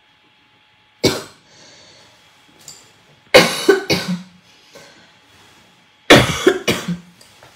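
A woman coughing in fits: a single cough about a second in, a double cough near the middle, and a quick run of three coughs near the end.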